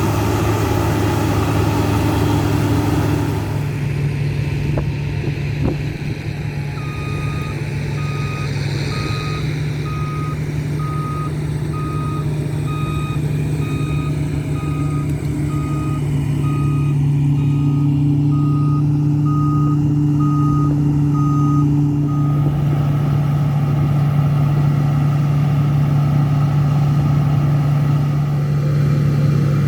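Heavy diesel harvest machinery running steadily, with a reversing alarm beeping about once a second for roughly fifteen seconds, starting about seven seconds in: the machine is backing up.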